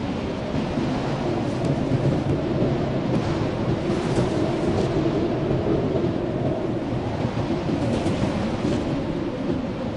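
Blizzard wind blowing hard: a steady, deep rumble with a fainter hiss above it.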